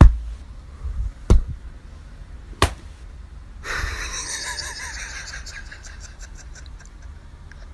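Three sharp knocks, about a second and a half apart, then a steady hiss of noise from about three and a half seconds in.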